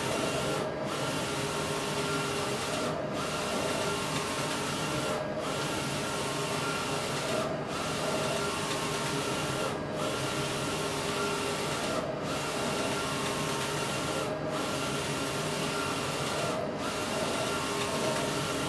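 Wide-format inkjet printer printing on sign film: a steady mechanical running noise with a few held tones, dipping briefly about every two and a quarter seconds.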